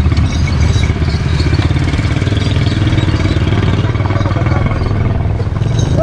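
A small engine running steadily with a low, even drone.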